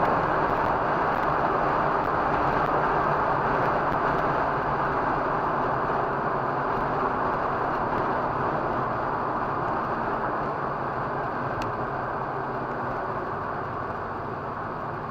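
Mazda RX-8's two-rotor rotary engine running at speed with heavy road and wind noise, heard from inside the cabin, gradually getting quieter.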